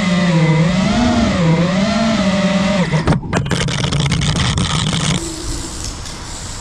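Brushless motors of a 5-inch FPV racing quadcopter (AMAX 2207.5 2500KV motors on three-blade 5-inch props) buzzing at high speed, the pitch rising and falling with the throttle. After a brief dip near three seconds the buzz turns rougher, and about five seconds in it drops away and quietens.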